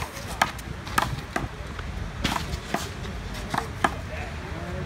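Small rubber handball being slapped by hand and smacking off the concrete wall and court during a one-wall handball rally: about eight sharp smacks, coming roughly in pairs.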